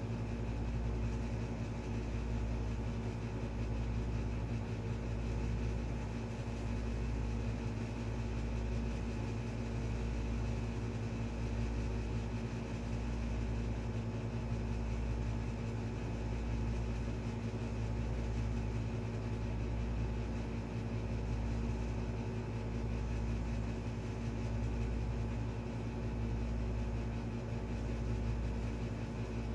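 Steady low mechanical hum with a few constant tones, throbbing slowly and regularly about every second and a quarter.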